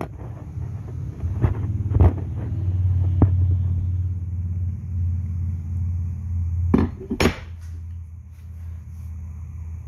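Camera handling noise: rubbing and scattered knocks over a low steady hum, with two sharp knocks close together about seven seconds in.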